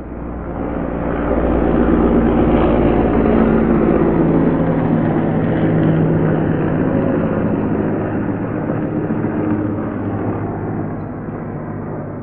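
Helicopter flying past: the engine and rotor sound swells over the first couple of seconds, holds, then slowly fades, its pitch dropping slightly as it goes by.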